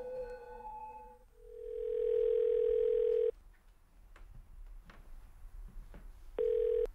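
Telephone ringback tone heard through a phone's earpiece: a steady tone of about two seconds, a pause of about three seconds, then a second tone cut short near the end. It is the sign that the called line is ringing. Sustained music notes fade out in the first second.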